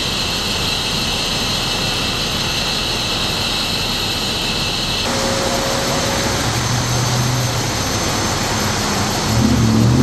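Steady roar of idling vehicle engines at a roadside crash scene, with an abrupt change in tone about halfway through and low pitched humming tones coming in near the end.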